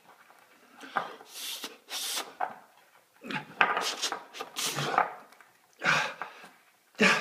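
A man's mock mouth-to-mouth rescue breaths blown onto an ice cube: a series of separate breathy puffs and huffs, with a dense cluster in the middle and single blows near the end.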